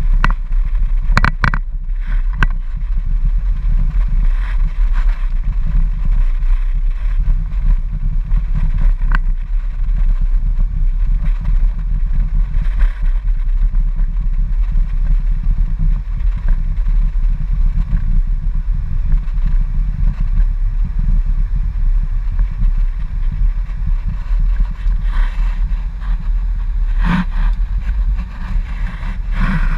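Steady low rumble of a car driving slowly, heard from inside the cabin through a dashboard-mounted camera, with a few sharp clicks and rattles.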